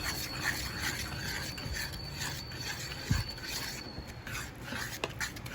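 Pancake batter being mixed by hand in a bowl: repeated scraping strokes of the utensil against the bowl, with a single low thump about three seconds in.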